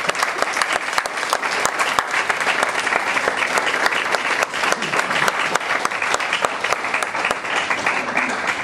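Audience applauding: a room of people clapping loudly and steadily.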